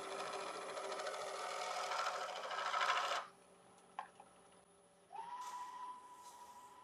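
Beeswax rubbed against a small ash bowl spinning on a wood lathe: a rapid rubbing hiss that grows for about three seconds, then stops suddenly. A click follows, and a little later a steady high whine starts, rising briefly and then holding.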